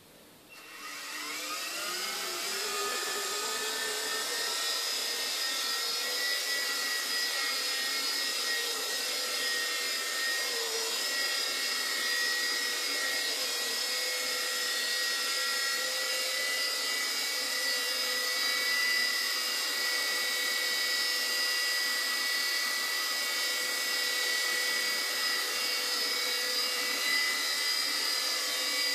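Mini MJX F-Series RC helicopter's electric motors and rotors spinning up about half a second in, the whine rising in pitch over the first couple of seconds, then running as a steady high whine while it lifts off and hovers.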